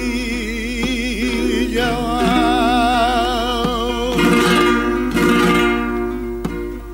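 Recorded flamenco cante por soleá: a male singer opening with the 'ay' quejío in long, wavering held notes. A flamenco guitar comes in with strummed chords about four seconds in.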